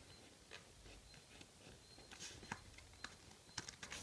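A sheet of paper being folded and creased by hand: faint, scattered soft crinkles and taps.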